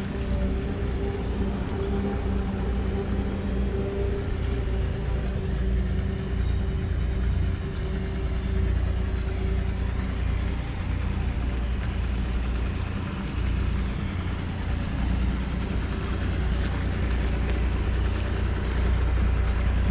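A 1966 Ford 2000's 2.6-litre three-cylinder diesel engine idling steadily, heard up close.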